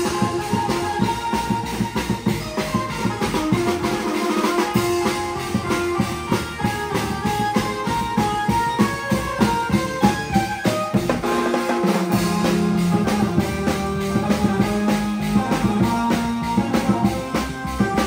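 Music with a steady, busy drum beat and a melody over it.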